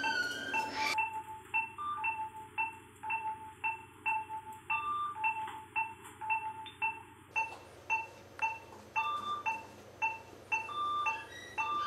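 Background music: a gentle mallet-percussion melody of short plinking notes in a steady rhythm.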